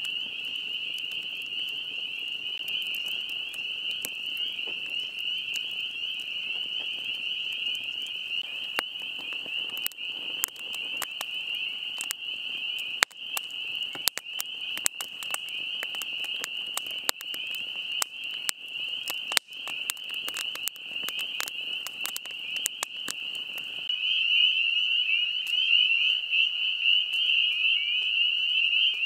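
Chorus of many frogs calling at once: a dense, steady, high trilling. Scattered sharp clicks and crackles come through over the middle stretch, and near the end the chorus grows louder as the low background hiss drops away.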